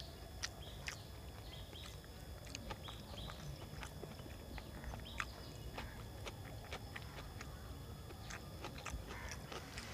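Eating by hand: chewing and mouth smacks, with scattered soft clicks of fingers picking food from steel plates.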